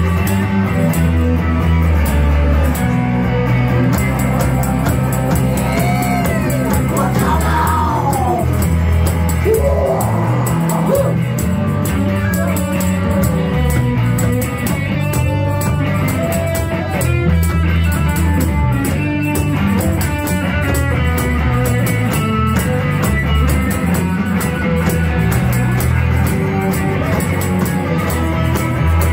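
Live rock band playing electric guitar and bass guitar, with singing. Sliding, gliding notes come between about six and eleven seconds in.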